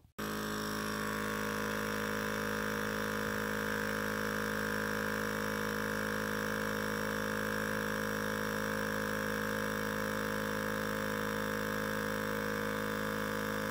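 Electric vacuum wine pump switched on, its motor running with a steady, unchanging hum while it draws liquid through the filter into the carboy.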